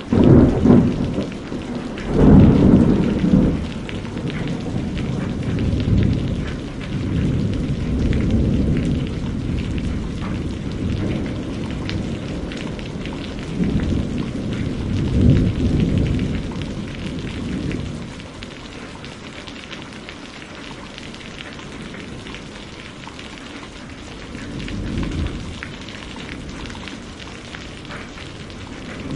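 Thunderstorm: steady heavy rain with rolling thunder that swells several times, loudest in the first seconds and again mid-way, before the rain continues more evenly.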